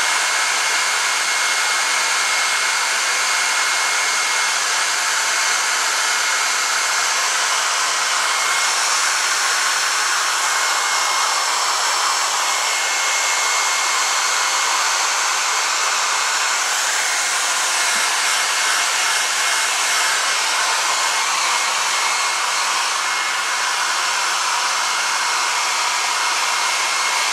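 Small handheld electric hair dryer running steadily, blowing air into the fur of a squirrel mount, with a thin steady whine over the rush of air.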